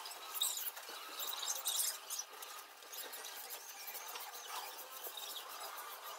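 Aluminium foil crinkling and rustling as hands press and smooth it onto a glued cardboard ring, an irregular faint crackle that is loudest in the first two seconds.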